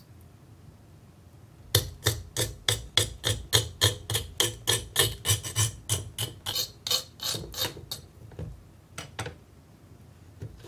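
Hollow ice bottle being knocked sharply and quickly, about four hard taps a second for some six seconds, then two more taps near the end.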